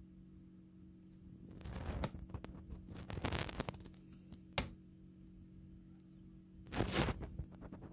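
Steady low hum of an egg incubator, with several bursts of rustling and one sharp click from handling close to the microphone.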